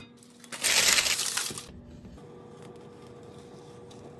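A loud rough scraping, crinkling noise lasting about a second, from the dutch oven and the baked loaf being handled, then a quieter steady hum.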